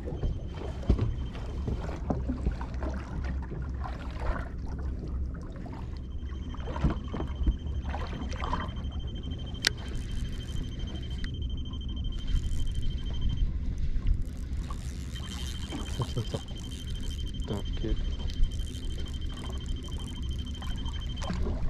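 Water slapping against a small boat's hull, with wind rumble on the microphone. A high electronic beeping tone sounds for several seconds at a time, twice.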